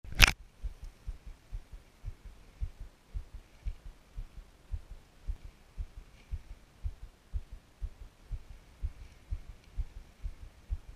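A sharp knock as the camera is handled, then a run of low, muffled thumps, about two a second and uneven.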